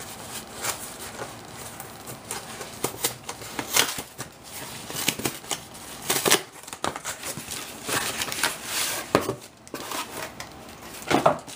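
Paper and cardboard packaging being unwrapped and handled by hand: irregular rustling, crinkling and tearing, with a few louder scrapes in the second half.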